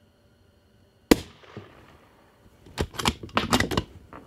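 MPA bolt-action .308 rifle firing one Federal round, a single sharp shot about a second in with a ringing tail, the primer going off normally. The bolt is then worked in a quick run of metal clacks, with two lighter clicks near the end.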